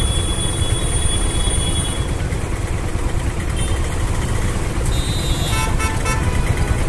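Steady rumble of road traffic and engines, with a thin high whine that stops about two seconds in. A vehicle horn honks in a few short toots about five and a half seconds in.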